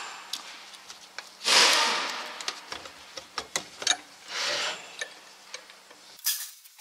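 Small metal clicks and knocks from a lever-type valve spring compressor and the valve keepers as valve springs are fitted on a Scania V8 cylinder head, with two short, louder rushing noises, one about a second and a half in and one near four and a half seconds.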